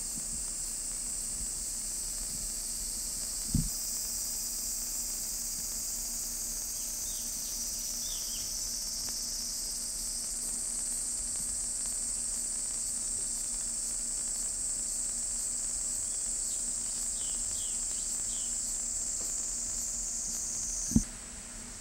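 Steady, high-pitched insect chorus with a few faint bird chirps. A dull low thump comes about three and a half seconds in, and another near the end, where the insect sound cuts off abruptly.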